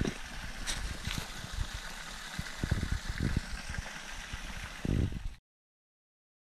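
Flowing stream water rushing as a steady hiss, with irregular low thumps on the microphone. It cuts off abruptly a little over five seconds in.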